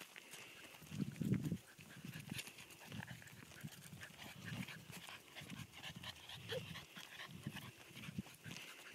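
Puppies panting in short bursts, about two a second, the loudest burst about a second in.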